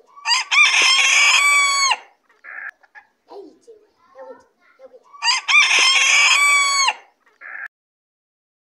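Large white feather-footed rooster crowing twice, each crow a long call of about two seconds that drops in pitch at the very end.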